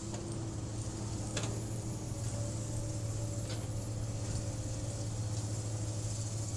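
Excavator's diesel engine running steadily, with two faint knocks about one and a half and three and a half seconds in.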